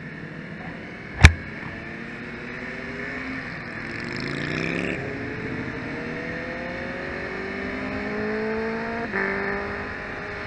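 Yamaha MT-03 parallel-twin engine accelerating through the gears: the pitch climbs in each gear and drops back at each of several upshifts. A sharp click sounds once about a second in.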